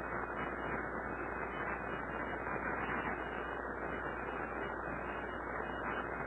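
Steady background hiss with a faint low hum, unchanging and without any distinct sounds.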